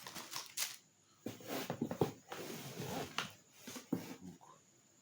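Irregular rustling, clicks and knocks of a cardboard box and its packaging being handled and opened, with a longer rustle in the middle.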